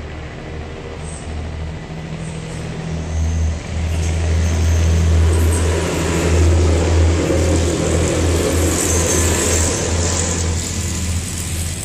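Diesel railbus train passing over a level crossing. Its engines drone steadily, and the rumble of the wheels on the rails swells from about four seconds in and stays loud while the cars go by, easing near the end.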